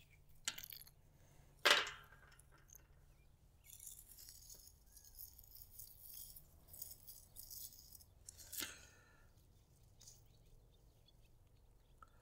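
Small plastic MC4 solar connector parts being handled and fitted onto a solar cable: a few sharp clicks, the loudest about two seconds in and another near nine seconds, with soft rattling and rustling between.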